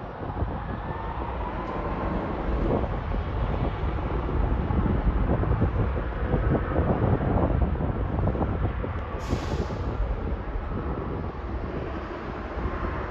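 Ryanair Boeing 737's twin jet engines at takeoff thrust during the takeoff roll: a steady, heavy roar that swells over the first few seconds and eases a little near the end, with a faint whine gliding in pitch at the start. A brief hiss cuts in about nine seconds in.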